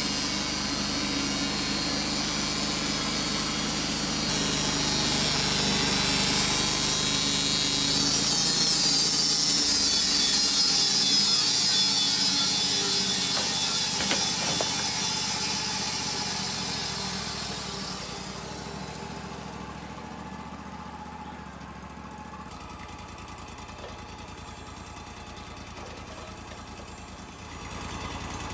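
Wood-Mizer LT-35 portable bandsaw mill running, with a loud hissing cut that builds and then fades away about 18 seconds in, leaving the engine running quieter.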